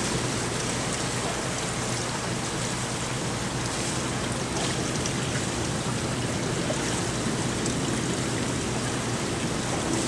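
Steady rushing hiss of water in an indoor diving pool hall.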